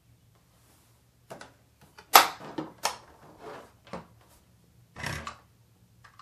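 Hard plastic clacks and knocks from the LEGO City Grand Prix Truck trailer (set 60025) as its hinged side wall is swung shut and the trailer is handled on a tabletop. About half a dozen sharp knocks come in a loose string, the loudest about two seconds in, with a short rattle near the end.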